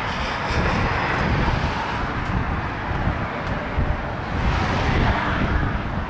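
Wind buffeting the microphone: an uneven low rumble over a steady outdoor hiss.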